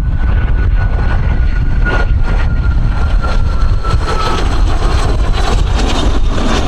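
Strong wind buffeting the microphone with a heavy low rumble, and under it an aircraft engine's thin whine slowly falling in pitch as the plane passes.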